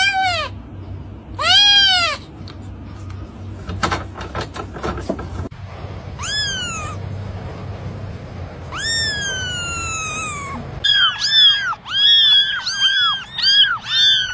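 A cat meowing repeatedly in high-pitched calls: two short meows at the start, another a few seconds later, then one long meow that falls in pitch, and near the end a quick run of short meows.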